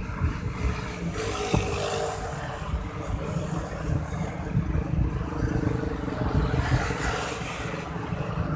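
Road traffic going by: a steady rumble with vehicles passing, swelling about a second in, around five seconds and near seven seconds. A short sharp click comes about a second and a half in.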